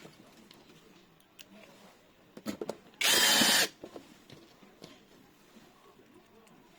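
Power drill running in one short burst of under a second, about three seconds in, driving a screw to fasten a door lock body. A few light clicks of handling come just before it.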